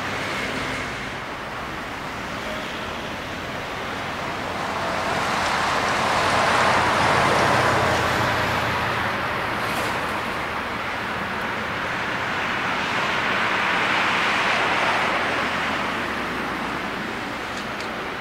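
Boeing 777-300ER's GE90-115B turbofan engines at taxi power: a steady jet rush that swells twice, about seven seconds in and again around fourteen seconds, as the airliner rolls past.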